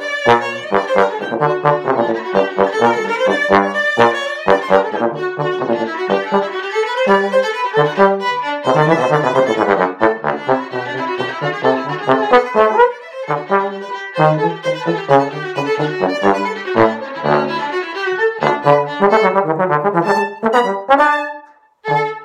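Bass trombone and violin playing a duet, with many short, quick notes, the trombone carrying a low line under the violin. The playing breaks off briefly near the end, then picks up again.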